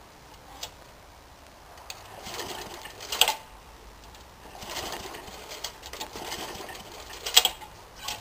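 Two pulls on the recoil starter cord of a Briggs & Stratton 3.5 hp lawn mower engine. Each pull is a rasping swell that ends in a sharp snap, and the engine does not catch.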